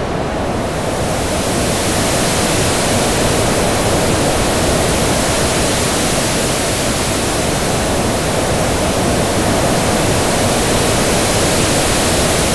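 Synthesized ocean-surf sound effect: white noise split into high and low bands at about 680 Hz, each given random rising and falling volume envelopes, slower on the lows. It plays as a loud, fairly steady hiss.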